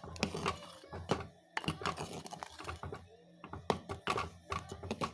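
A spoon stirring a thick coconut-and-mango curry in a cooking pot, with many irregular clicks and knocks of the spoon against the pot and scraping in between.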